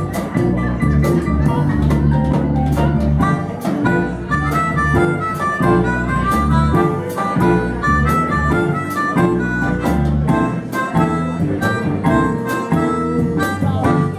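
Live blues band playing: a harmonica lead over guitar, bass and drums keeping a steady beat.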